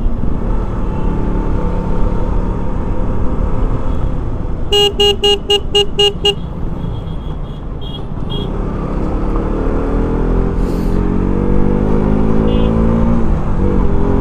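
Road traffic and a vehicle engine running, with a horn sounding a rapid string of about seven short toots about five seconds in. Later an engine's pitch rises steadily as it speeds up, then drops back near the end as it changes gear.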